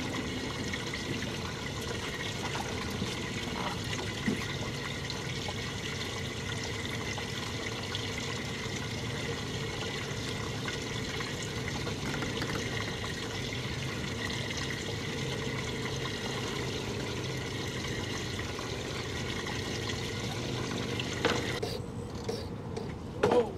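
Water trickling and running steadily, with a faint steady hum under it; shortly before the end it drops away and a few louder knocks follow.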